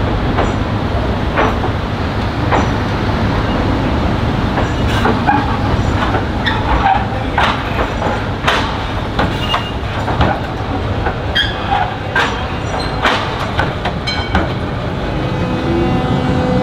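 Z3-class tram rolling slowly over a portable crossover laid on top of the existing track: a steady low rumble with irregular metallic clanks and knocks as the wheels cross the temporary rail joints and frogs, and a few short squeaks of the wheels.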